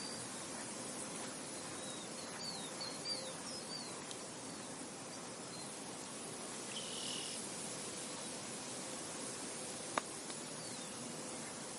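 Steady hiss of wind and insects, with a bird giving a quick run of short chirps about two to four seconds in, another short call near the middle, and a single sharp click about ten seconds in.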